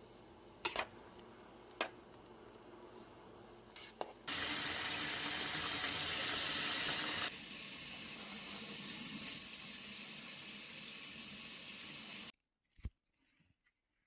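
Kitchen tap running into a sink: a few sharp knocks, then water gushing at full flow for about three seconds, running on at a lower flow and cutting off suddenly.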